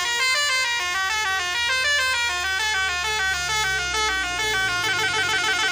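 A bright electronic melody of quick stepping notes, several a second, with no speech over it.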